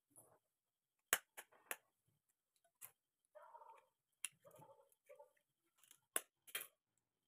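A knife tapping an eggshell to crack it: a handful of sharp, irregular taps, with soft crackling of broken shell between them.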